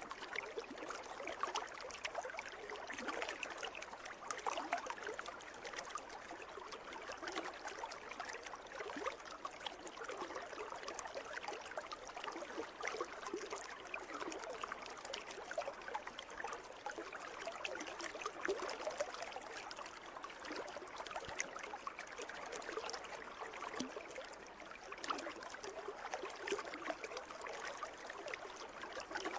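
Water in a pool trickling and splashing steadily, with many small splashes and gurgles all through.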